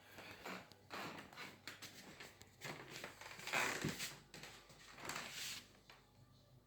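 Irregular rustling and scraping handling noises, loudest about three and a half seconds in.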